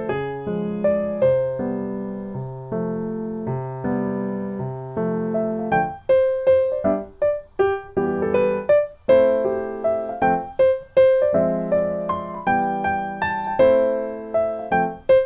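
Background instrumental music: a light piano melody of short notes that strike and fade, over chords.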